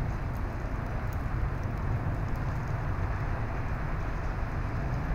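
Steady outdoor background noise of a rain-wet street: a low rumble with a hiss above it and a few faint ticks, with no distinct events.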